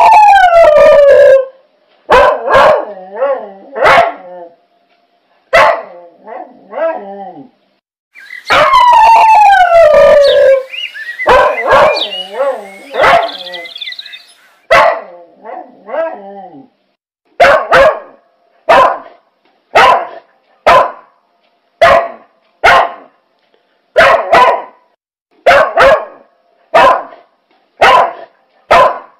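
A dog howling and barking. A long falling howl comes at the start and another about nine seconds in, with scattered barks between. Through the second half there is a steady run of single barks, about three every two seconds.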